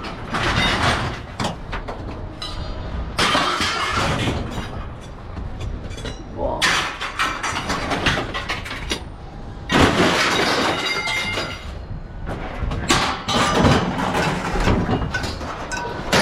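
Scrap metal clanging and clattering as pieces are handled and thrown, in irregular crashes over a steady rumble of a running vehicle engine.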